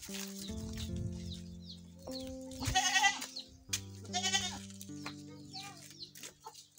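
Background music of held notes changing in steps, with a goat bleating twice in a quavering voice about three and four seconds in.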